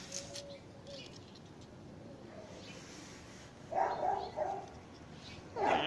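Two short animal calls over a low background, one about four seconds in and a louder one near the end.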